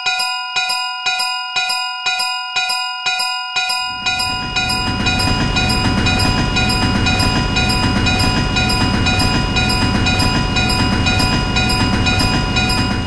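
Railroad crossing alarm ringing in repeated strikes about twice a second; about four seconds in, the steady rumble of a passing train joins it and both run on together.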